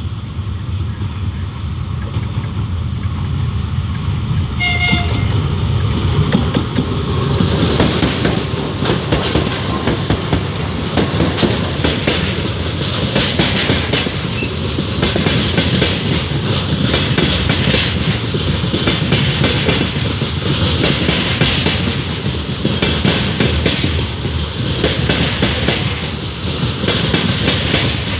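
2TE10M diesel locomotive hauling a freight train past, with one short horn blast about five seconds in. After the locomotive passes, the hopper wagons' wheels keep running loudly over the rails.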